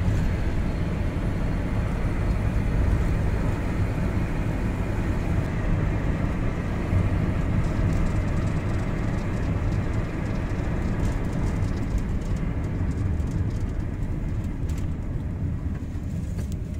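Steady low rumble of a road vehicle driving along, with engine and tyre noise heard from inside the vehicle.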